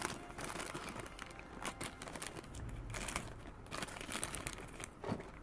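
Thin plastic toy packaging crinkling and rustling as it is handled and opened, with many small irregular crackles.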